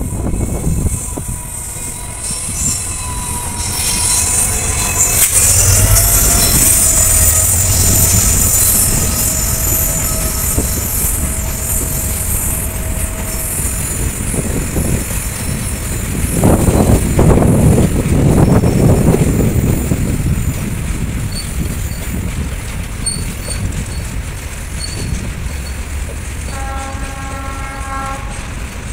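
A long freight train of covered goods wagons passing close at speed: the locomotive goes by in the first seconds, then a steady rumble and clatter of wagon wheels over the rails. A horn sounds faintly in the first part and again in a short blast near the end.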